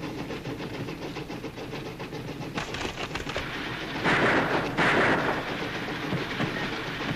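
Train running with a steady clickety-clack of its wheels, and two loud revolver shots a little under a second apart about four seconds in.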